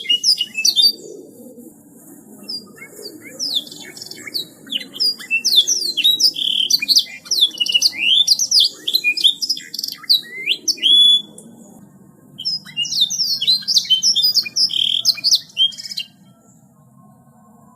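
Domestic canary singing a long, fast song of chirps and rolling trills, pausing briefly about a second in and falling quiet near the end.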